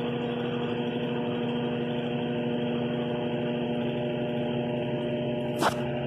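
Consul Facilite CWH12 top-load washing machine running, its motor and turning agitator giving a steady hum with a brief sharp click near the end.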